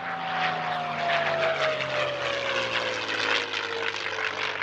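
North American P-51 Mustang's Packard Merlin V-12 engine and propeller droning through a flypast, the note falling steadily in pitch as the aircraft passes.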